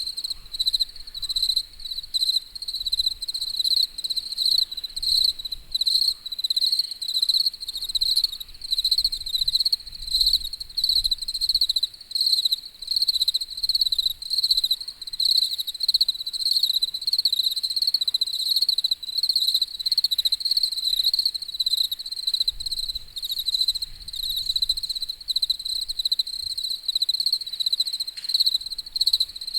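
Crickets chirping in a steady chorus, a high, evenly pulsing trill that keeps going without a break.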